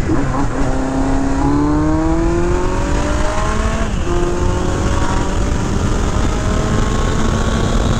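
1982 Kawasaki GPZ1100's fuel-injected inline-four engine accelerating, its pitch rising through one gear, dropping at a shift about four seconds in, then rising again. Heavy wind rumble on a microphone inside the rider's helmet muffles it.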